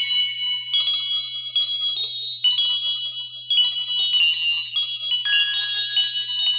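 Modern theremin playing electronic music in a high, bell-like tone, its notes stepping from one held pitch to the next rather than gliding, over a steady low hum.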